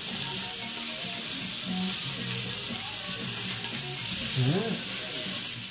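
Sausages sizzling steadily as they fry in a pan.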